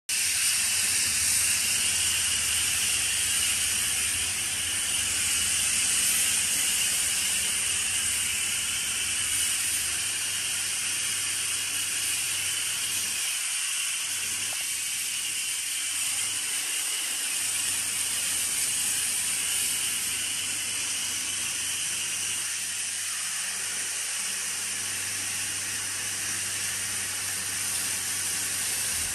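Pressure-washer foam lance spraying snow foam onto a truck: a steady hiss of spray, with a faint low hum underneath. It starts abruptly at the very beginning.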